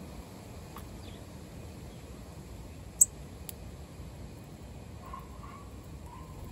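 Male northern cardinal giving a single loud, sharp, high chip note about three seconds in, followed half a second later by a fainter click. A few faint, soft chirps come near the end.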